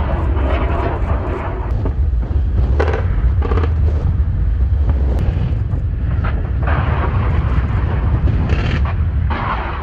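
Surface-to-air missile launches: the rushing roar of rocket motors over a heavy low rumble, swelling again several times.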